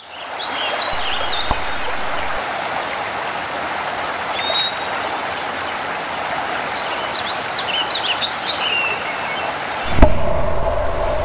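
Stream running over rocks with birds chirping. About ten seconds in comes one loud chop of an axe splitting a log, followed by a steady low hum.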